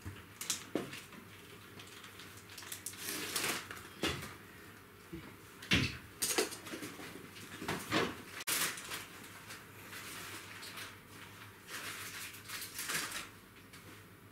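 Irregular rustling and clattering with several dull knocks, from things being handled close by.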